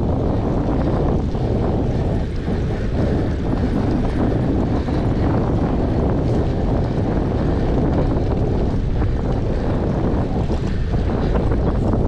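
Steady, deep rush of wind buffeting a moving GoPro's microphone.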